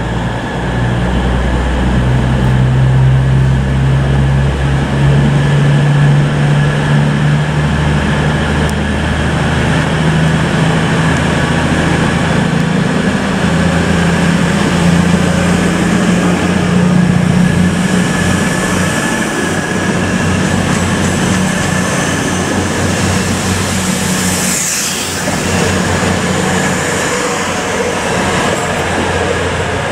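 Class 222 Meridian diesel multiple unit's underfloor diesel engines running, the engine note rising as the train picks up speed alongside the platform. Later on there is a rhythmic clatter of wheels, with a brief high squeal near the end.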